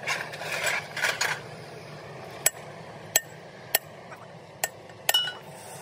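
A hammer tapping on metal parts of a truck differential: five sharp, ringing strikes spread over about three seconds, after a second or so of rough metal handling noise at the start.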